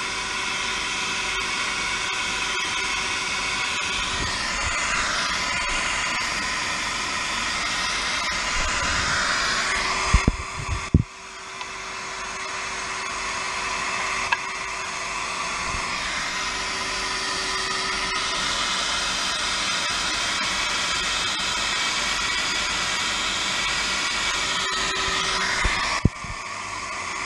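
Henry vacuum cleaner running steadily with a constant whine, while an airbrush hisses in several bursts as paint is sprayed. A couple of brief knocks about ten seconds in.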